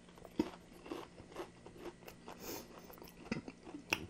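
Close-up crunching and chewing of a homemade breaded fried chicken tender, its crisp crust crackling as it is bitten and chewed. The sharpest crunches come about half a second in and again near the end.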